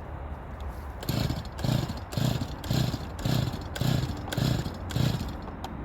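Chainsaw being pull-started: about eight quick, rhythmic pulls on the recoil starter, the engine turning over without catching.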